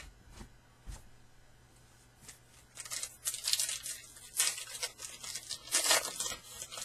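Foil wrapper of a Topps Fire baseball card pack being torn open and crinkled by hand, in several short rips starting about halfway through, after a few light clicks of cards being handled.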